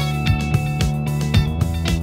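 Background music with a steady beat, about four drum hits a second over sustained bass notes.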